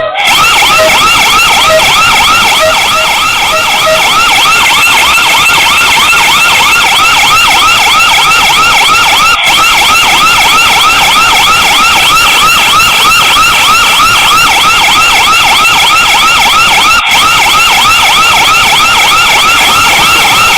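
Loud electronic siren of an elephant-scaring alarm, yelping in fast rising sweeps about three times a second, with two momentary breaks. It sounds as a deterrent after a wild elephant is detected.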